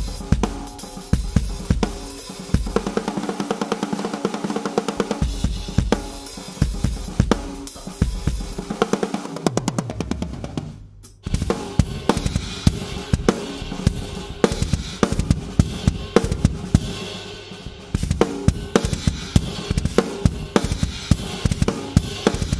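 Acoustic acrylic drum kit played in grooves and fills, snare, bass drum, toms and cymbals, recorded through a Yamaha EAD10's kick-drum-mounted microphone. The playing stops briefly about halfway, then starts again.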